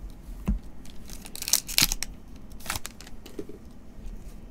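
Glossy trading cards being flipped through by hand, each card sliding off the stack with a short papery swish. There are a few swishes, the loudest about halfway through.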